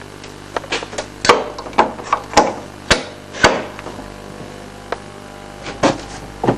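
Sharp handling clicks and knocks as a mains plug is pushed into a socket and the parts are moved about: about a dozen knocks, most in the first three seconds and two more near the end, over a faint steady hum.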